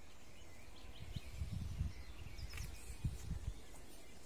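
A few faint bird chirps over steady low background noise, with a run of dull low thumps starting about a second in.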